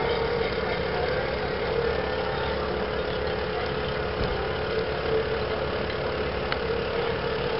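An engine idling steadily at low revs, a constant low rumble with a hum.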